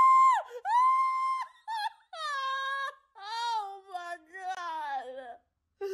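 A high-pitched voice wailing: a couple of long held notes, then a string of shorter moaning notes that slide downward in pitch.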